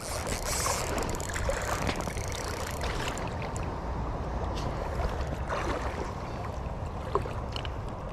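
Steady rush of wind on the microphone and river water flowing over shallows, with a few scattered small clicks.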